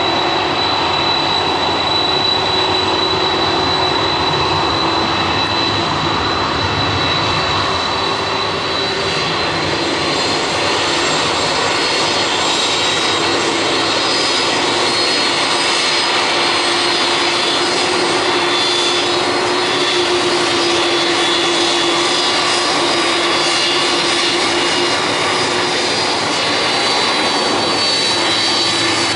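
Boeing 747's four turbofan engines at taxi power as the jet rolls past close by. A loud, steady jet rush is topped by a high-pitched whine that drifts slightly in pitch.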